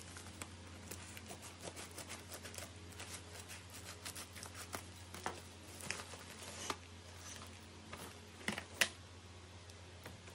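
Scissors snipping open a plastic bubble mailer, with crinkling of the plastic packaging and small packets tapped and set down on a glass-topped table; the sharpest taps come near the end. A low steady hum runs underneath.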